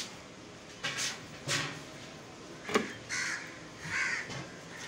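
Harsh bird calls, several short calls a few times over, with one sharp knock just past the middle.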